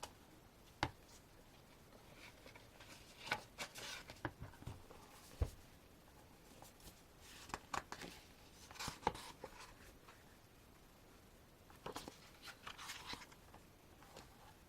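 Faint, scattered rustles, taps and clicks of card and paper being handled: a CD album's packaging, photocards and photobook being moved about.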